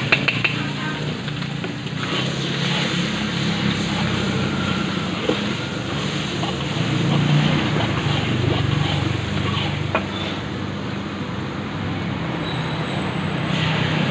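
Long metal spatula scraping and clinking against an aluminium wok as egg and garlic paste fry, with a few sharp clinks near the start and about ten seconds in. Underneath runs a steady low rumble and hiss.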